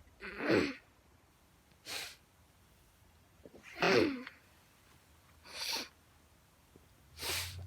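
A dog barking five times, about every two seconds, some barks dropping in pitch.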